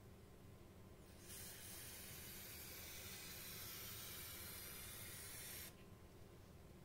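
Aerosol can of gold spray paint spraying in one continuous hiss of about four and a half seconds, starting about a second in and cutting off suddenly near the end.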